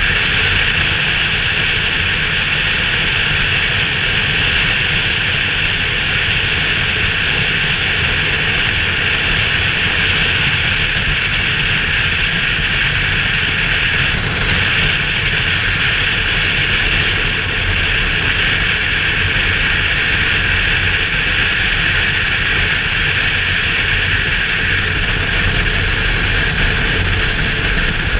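Steady wind rush over a helmet-mounted camera, with a BMW R 1200 GS boxer-twin engine running evenly underneath at cruising speed.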